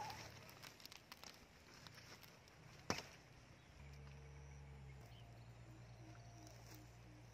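Quiet outdoor ambience with a single sharp click or snap about three seconds in. From about four seconds in, a faint low steady drone sets in.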